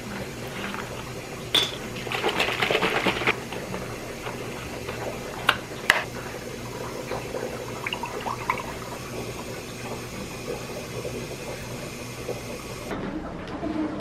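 Kitchen handling sounds: a sharp click, then about a second of rattling and clatter, and two more sharp clicks a few seconds later.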